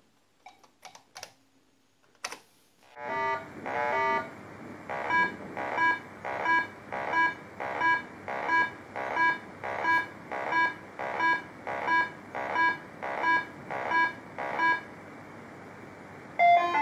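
A few keyboard key clicks, then the Olivetti Prodest PC128 playing its BASIC PLAY tune: two quick notes followed by about fifteen identical short electronic beeps, roughly one and a half a second, over a steady hiss. A different note starts near the end.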